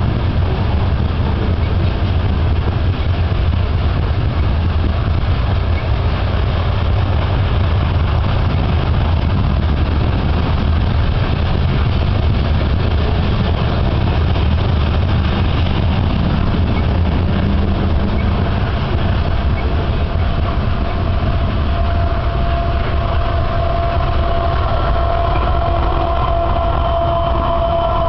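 Freight train of covered hopper cars rolling past at speed, a steady loud rumble of wheels on rail. Over the last several seconds a steady whine of a few tones builds up over the rumble.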